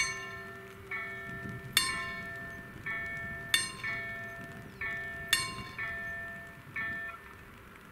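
The level crossing's two electronic warning bells (KLD-4013 and KLD-4103) strike repeated gong-like tones. The louder one sounds about every 1.8 seconds and a quieter one falls between its strikes, warning of an approaching train while the barriers come down. The bells fall silent about seven seconds in, once the barriers are fully lowered.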